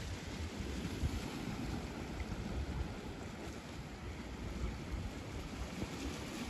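Wind gusting over the microphone, with sea waves washing steadily underneath.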